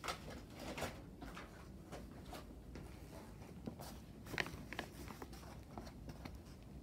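Faint handling noise: scattered light clicks and taps, a few of them sharper, over a low steady background hum.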